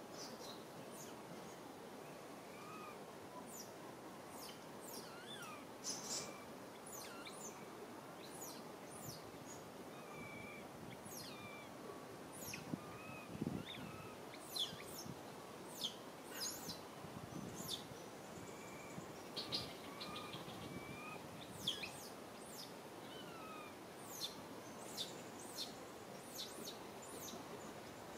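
Small birds chirping, many short high chirps scattered over a steady outdoor background hiss, busiest in the middle stretch.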